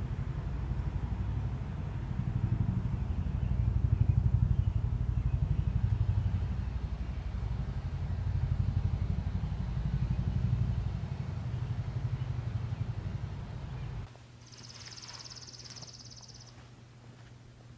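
A low, engine-like rumble that swells and fades, then cuts off abruptly about fourteen seconds in. After the cut, a high, steady trill sounds for about two seconds over quieter background.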